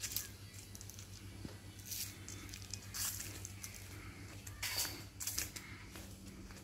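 Irregular light scuffs and clicks from someone walking along a paved path while carrying a phone camera, over a steady low hum.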